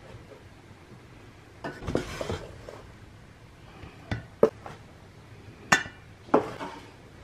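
Metal knife scraping and clinking against a metal baking pan and an enamel plate as baked buns are lifted out: a scrape about two seconds in, then several sharp clinks.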